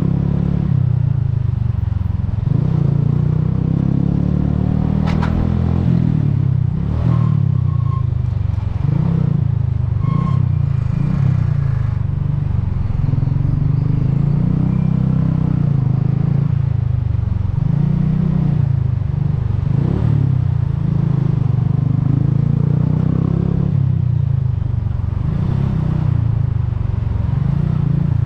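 Bajaj Boxer's single-cylinder four-stroke engine running at road speed, its note rising and falling repeatedly with throttle changes.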